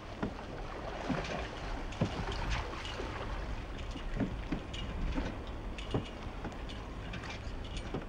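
A canoe being paddled on open water: a steady wash of water and wind with irregular knocks and splashes from the paddle.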